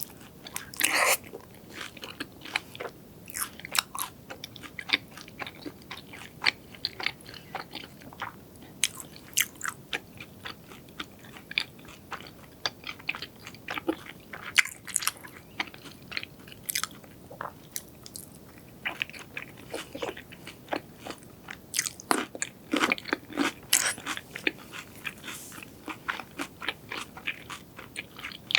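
Close-miked eating sounds: a person biting and chewing crunchy food, with many short sharp crunches and mouth clicks and a denser run of louder crunches about three quarters of the way through.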